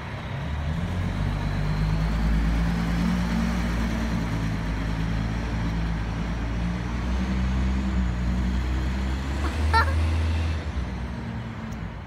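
A motor vehicle's engine running close by: a low, steady hum that builds over the first couple of seconds and fades near the end. A brief sharp squeak comes about ten seconds in.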